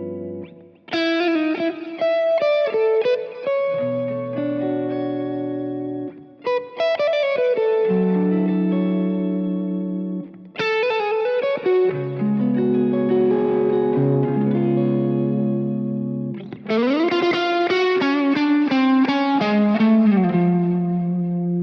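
Vola OZ RV TNC electric guitar played through effects: melodic phrases of held notes with pitch bends, broken by short pauses. Late on, one phrase starts with a fast upward slide.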